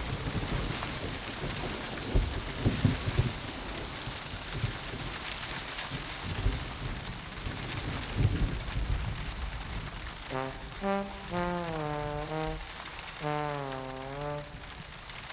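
Steady rain with low rumbles of thunder. About ten seconds in, a melody of held, bending musical notes starts over the rain.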